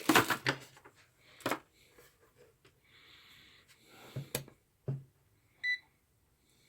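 Handling noises, a few short clicks and knocks and a soft rustle, then a single short electronic beep from the Etekcity A1000 multimeter about two-thirds of the way in.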